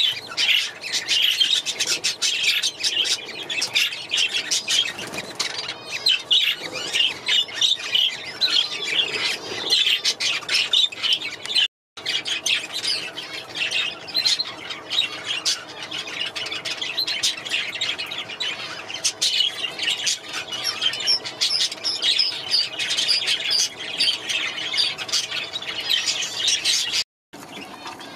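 A flock of budgerigars chattering and squawking continuously, a dense, fast stream of high chirps and calls. Two brief, complete breaks in the sound, about 12 seconds in and near the end.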